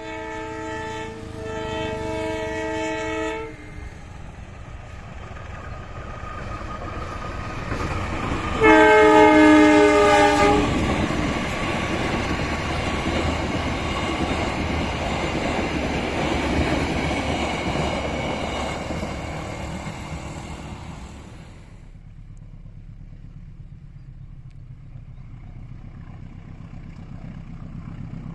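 Locomotive horn sounding two blasts, then a train running past. The horn sounds again about nine seconds in, its pitch dropping slightly as it goes by, and the train noise dies away about twenty-two seconds in.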